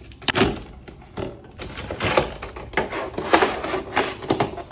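Seal on a foil-covered cardboard gift box being peeled off and the box flap opened: a series of crinkles, scrapes and sharp knocks of cardboard being handled.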